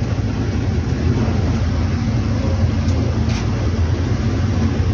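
Steady low hum with an even airy whir over it, from a running electric motor.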